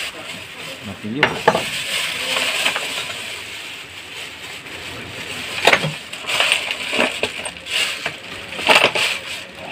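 Loose metal nuts, bolts and wrenches clinking and clattering in a plastic toolbox as gloved hands rummage through it, with plastic bags rustling. There are several sharp clinks: two about a second in, then more near the middle and toward the end.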